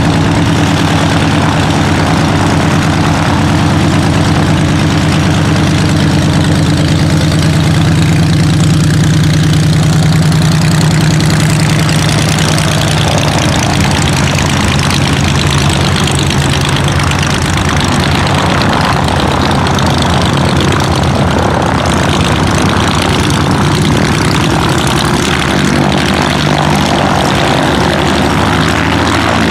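Auster light aircraft's piston engine and propeller running steadily at low power while taxiing on grass.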